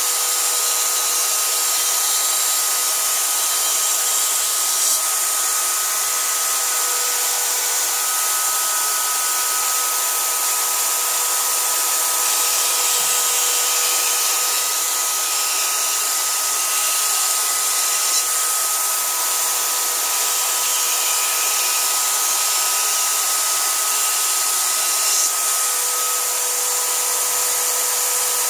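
Corded electric drill running at a constant speed with a steady whine, driving a drill-bit grinding-stone attachment while a kitchen cleaver's edge is ground on it.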